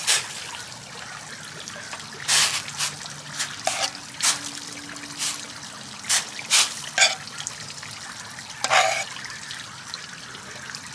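Raw chicken pieces splashing into near-boiling water in a stainless steel pan, then a metal spoon stirring and knocking against the pan, with irregular clinks and sloshes over a steady hiss of the heating water.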